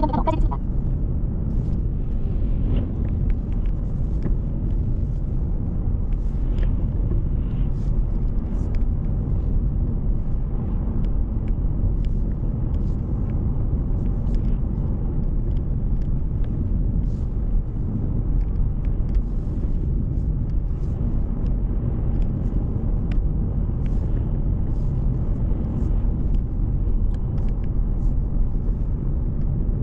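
A car driving: steady low rumble of road and engine noise, with faint scattered ticks.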